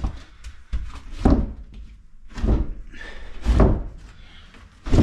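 Heavy thuds on a wooden plank floor, four of them a little over a second apart.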